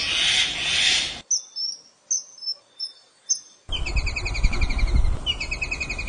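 Calls of several different birds in succession: a brief noisy burst, then a few short, high, clear chirps, then a fast, high rattling trill over a low rumble.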